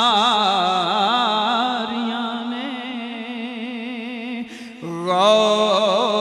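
A man singing a line of Punjabi Sufi devotional poetry through a microphone, drawing one syllable out into a long note with a strong wavering vibrato. About four and a half seconds in the voice breaks off briefly, then a new sustained phrase begins.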